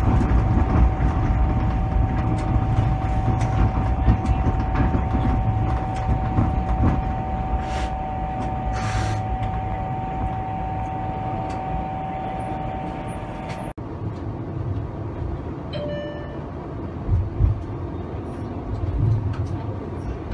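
Cab sound of a Toronto streetcar: a low rumble with a steady whine that cuts off abruptly about two-thirds of the way through. Two short hisses come near the middle, and a brief beep follows after the whine stops.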